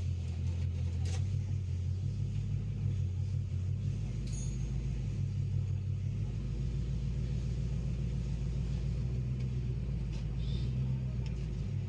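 Toyota Corolla car engine idling with a steady low rumble and an uneven, stuttering beat: a random misfire, which the mechanic suspects comes from a short or from power not reaching the ignition.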